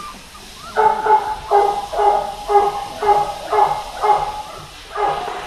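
A puppy barking repeatedly: a run of about eight short, high-pitched barks of the same pitch, roughly two a second.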